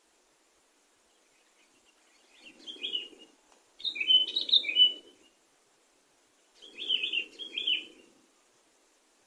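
Sooty-headed bulbul (kutilang) singing three bursts of quick chirping phrases, each about a second or so long, the middle burst the loudest.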